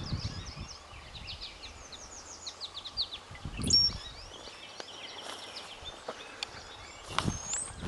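Wild birds chirping and singing in the woods, many short quick calls one after another, with a few low thumps about halfway through and near the end.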